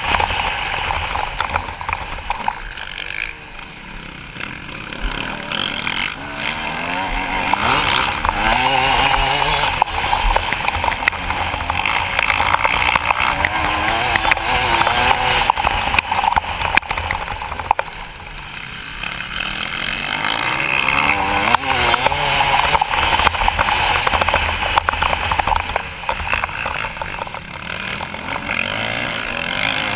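Motocross bike engine revving hard under acceleration, its pitch rising and falling through the gears. The throttle comes off twice, about three seconds in and again around eighteen seconds in, then the engine pulls up again.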